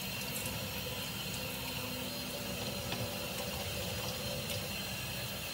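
Bathroom sink tap running steadily while water is splashed onto the face.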